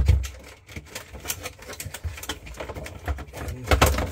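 Irregular clicks, taps and low thumps of hands handling wiring and plastic parts inside a refrigerator, tucking a wire harness into a hole in the liner.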